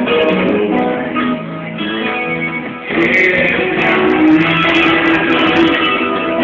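A small live band playing guitars with a cajón: plucked and strummed guitar notes over a steady accompaniment. The music grows fuller and louder about three seconds in.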